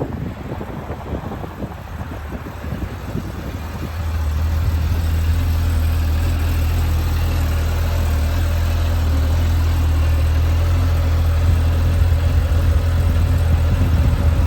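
Kawasaki Ridge XR side-by-side's 999cc inline four-cylinder engine running. A steady low hum becomes louder and steadier about four seconds in.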